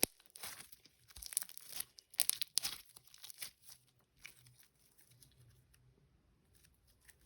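Crinkling and crackling as a plastic slime container and its contents are handled, in short irregular crackles over the first three seconds or so, then fading to faint noise.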